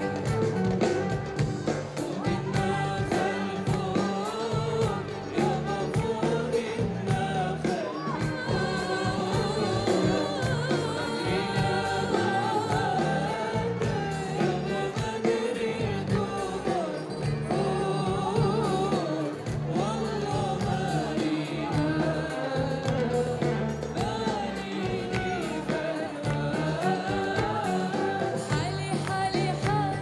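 A woman singing an Arabic song live into a microphone with a band accompanying her, the melody carried over a steady low beat through a stage sound system.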